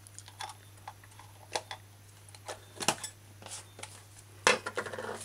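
Light clicks and clinks of a metal measuring-spoon set and kitchen utensils being handled over a bowl, scattered through, with a louder clatter and a short rustle about four and a half seconds in.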